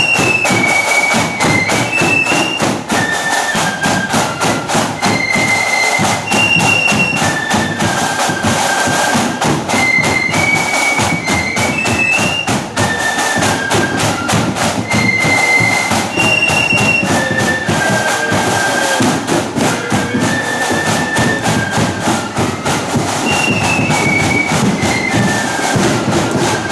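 Marching flute band playing a tune: a line of flutes carries a high, stepping melody over a steady beat of drums.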